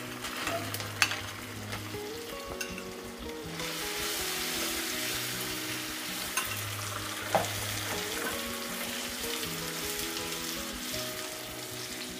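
Butter sizzling and bubbling in molten caramelised sugar in a nonstick pan while being stirred with a silicone spatula; the sizzle grows louder about three and a half seconds in, with a few clicks of the spatula against the pan. Soft background music with held notes underneath.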